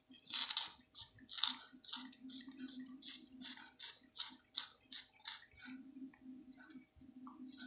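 A cat lapping yogurt from a small plastic cup: quick, wet licks of its tongue against the cup, about three a second, thinning out near the end. A low steady hum underneath.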